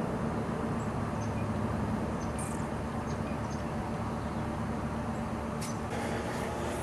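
Steady low mechanical hum of outdoor background noise, with a few faint short high chirps; the sound changes about six seconds in.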